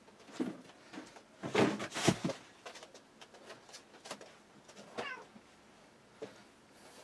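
Domestic cat meowing, its loudest calls about a second and a half in and again near the five-second mark, along with rustling and light knocks of a plastic bag and cardboard boxes being handled.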